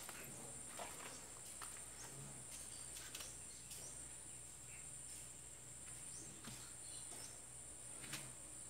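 Faint outdoor ambience: a steady high-pitched insect buzz from the surrounding trees, with scattered light footsteps and small clicks.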